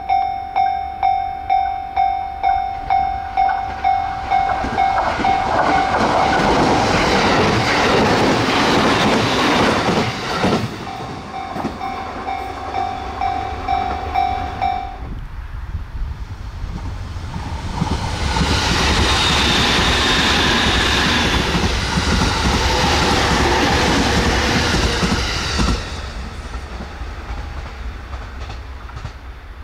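A level-crossing warning bell dings about twice a second, then an electric train passes at speed with rail clatter. The bell rings again briefly about 11 seconds in, and a second train passes, loudest in the middle of the second half and fading near the end.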